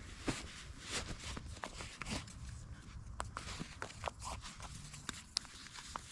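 Footsteps on dry ground, with irregular crunches and clicks.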